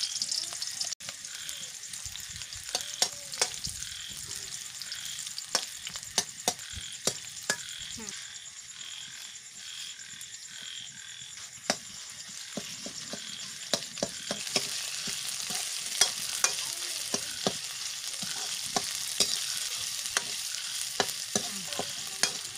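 Sliced onions sizzling as they fry in hot oil in a steel kadai, with a metal ladle clinking and scraping against the pan as they are stirred. The sizzle grows louder about two-thirds of the way through.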